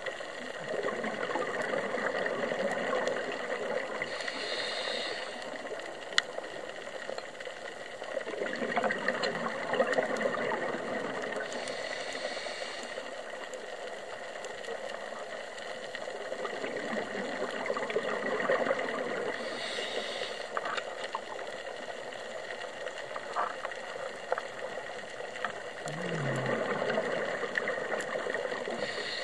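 Scuba diver breathing through a regulator underwater, in slow cycles about every eight seconds. Each cycle is a few seconds of gurgling exhaust bubbles followed by a shorter, higher hiss. One sharp click about six seconds in.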